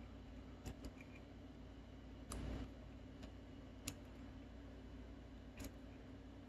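Faint, scattered clicks and a brief crackle of a plastic drinking straw being pinched and pressed flat between the fingers, over a low steady room hum.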